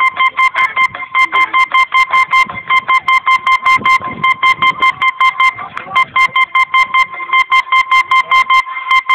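Music: a high-pitched electronic beep repeating in a fast even pulse, about five times a second, over a faint backing track.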